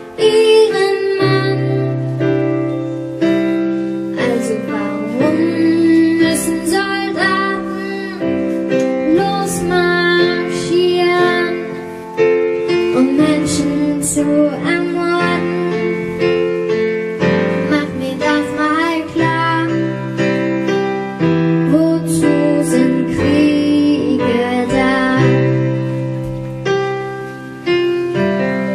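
A young girl singing a German ballad over piano accompaniment, with long held notes.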